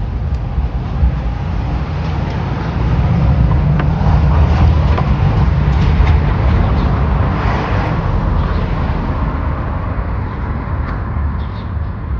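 Low rumbling noise that swells about three seconds in and eases off again, with a few light clicks and taps over it.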